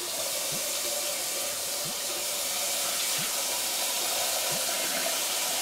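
Kitchen tap turned on and running steadily into a stainless steel saucepan, filling it with water: an even rush of water.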